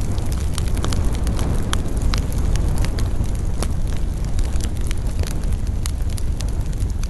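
Campfire burning, its wood crackling with many irregular sharp snaps over a steady low rumble.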